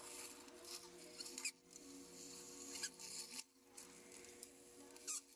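Faint, irregular scratching and light clicks of small metal valve parts and a piece of dry ice being handled, with a few brief squeaks, over a steady low hum.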